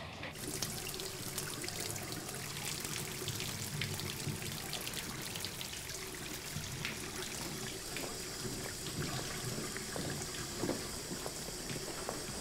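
Water running and splashing, starting suddenly and flowing steadily with small crackling splashes: the water supply flowing again once the plumbing is fixed.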